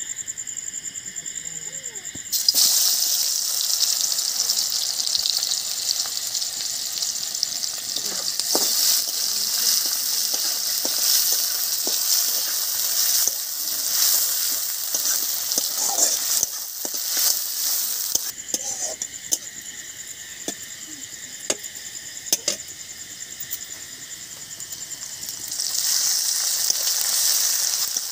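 Sliced onions tipped into hot oil in a kadai about two seconds in, then sizzling loudly as they fry, with a spatula scraping and clicking against the pan as they are stirred. The sizzle eases about two-thirds of the way through and rises again near the end. Crickets chirp steadily, heard plainly before the onions go in and in the quieter stretch.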